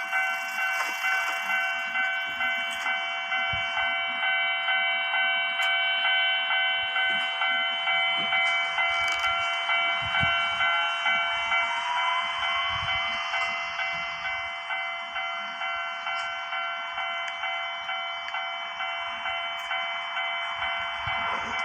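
Japanese level-crossing warning bell on the Hankai tram line, ringing in an even repeating pulse, about one and a half strokes a second. A faint rising whine comes in about halfway through.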